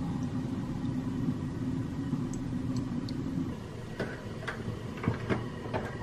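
A steady low hum that stops about three and a half seconds in, followed by a few light clicks and knocks of kitchen things being handled.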